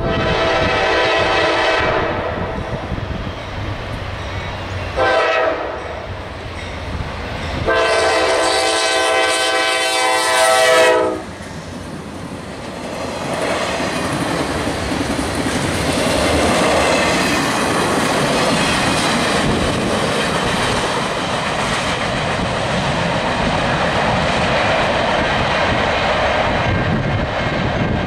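Norfolk Southern GE C44-9W locomotive's air horn sounding three blasts, long, short and long, for a grade crossing. Then the train rolls by with steady wheel-on-rail noise and clickety-clack from the passing freight cars.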